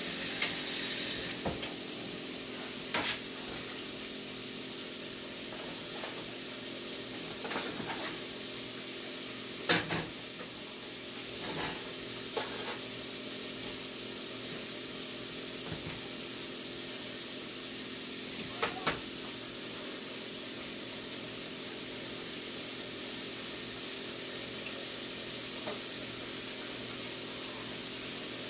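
Oil sizzling steadily in a skillet as food fries, over a faint steady hum, with a few sharp clinks of tongs against the pan, the loudest about ten seconds in.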